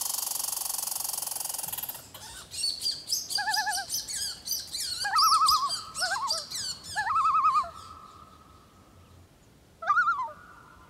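Birds calling: several wavering, trilled calls and many quick high chirps, dying away about two thirds of the way in, with one more short call near the end. Before them, a steady rushing noise cuts off suddenly about two seconds in.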